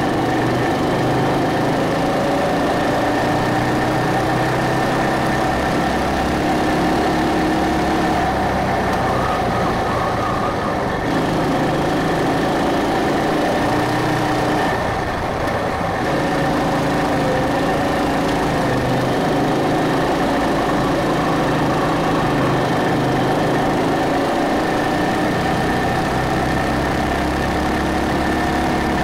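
Rental go-kart's small petrol engine running steadily as the kart laps the track. Its pitch drops twice, about a third and about halfway through, as the throttle eases for corners, then climbs back up, with wind rush on the microphone.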